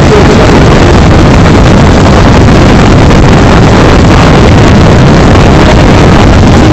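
Loud, steady rushing and rumbling noise with no clear words, the audio overloaded at full level.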